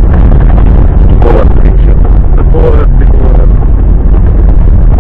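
Off-road vehicle driving along a bumpy dirt track, heard from on board: a loud, constant rumble of engine, tyres and wind on the microphone, overdriving the recording.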